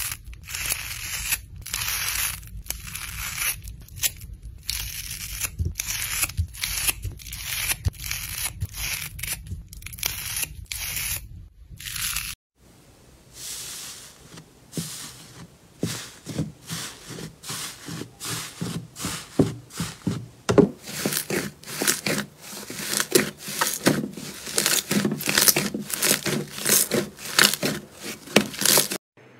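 Scissors snipping through a foam sponge, about two crisp tearing cuts a second. After about twelve seconds it changes to hands pressing and stretching a large lump of slime, which gives many quick little clicks and pops.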